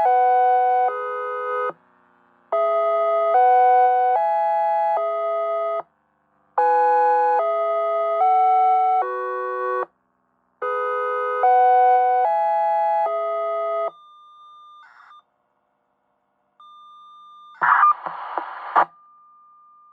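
Electronic outdoor warning siren sounding its dual-tone chime alert: a four-note chime phrase repeated, each note just under a second, ending about 14 s in. A faint steady tone and a brief burst of radio noise follow near the end.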